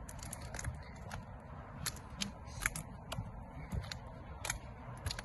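Acorns cracking and popping underfoot while someone walks: about a dozen sharp, irregular cracks over soft footsteps.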